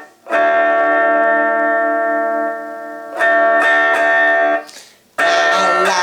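Electric guitar played through a Mini Marshall, a small amp that runs on a square 9-volt battery: a strummed chord rings for about three seconds, a second chord is struck and cut short, and a third chord comes in near the end.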